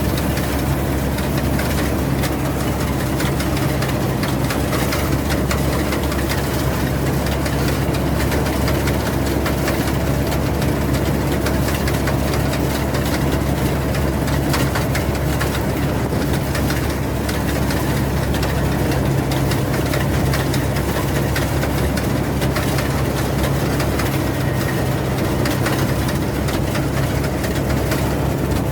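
Rice combine harvester's engine running steadily at an even pitch.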